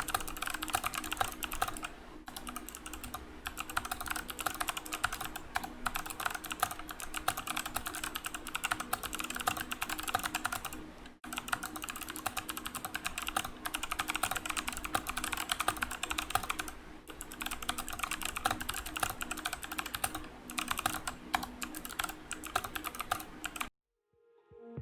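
Fast, continuous typing on a Rakk Lam-ang Pro mechanical keyboard fitted with Kailh Speed Bronze clicky switches: a dense patter of sharp key clicks. There is a brief break about eleven seconds in, and it stops about a second before the end.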